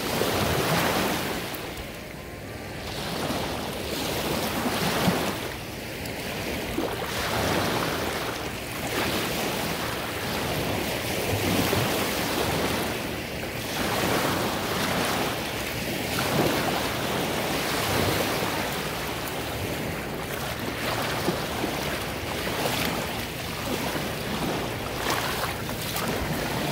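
Small waves breaking and washing over a shallow sandy lake shore, the wash swelling and fading every few seconds.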